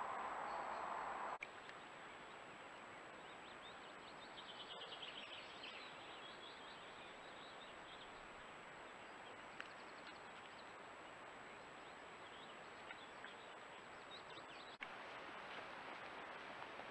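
Faint woodland ambience through a trail camera's microphone: small birds singing, with a rapid high trill about four to six seconds in and scattered chirps after it, over an even hiss and a thin steady high-pitched tone. The hiss drops abruptly about a second in and rises again near the end.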